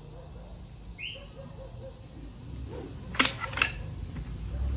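A thrown lasso landing on a wooden chair, with two sharp knocks about three seconds in, over a steady chirring of crickets.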